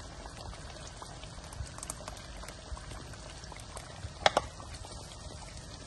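Thick butter chicken gravy of tomato, onion and cashew paste bubbling at a simmer in a pan, with a steady run of small pops and one louder click about four seconds in.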